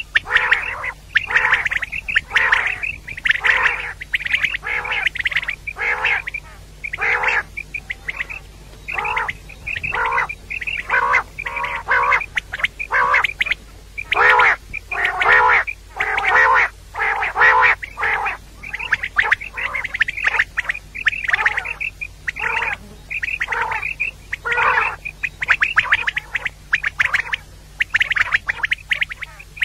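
Female common quail calling: a long run of short calls repeated about two a second, with brief pauses.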